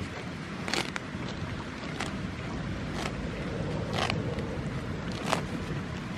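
A goat grazing, tearing off mouthfuls of grass in short sharp rips at irregular intervals, roughly one a second, over a steady low rumble.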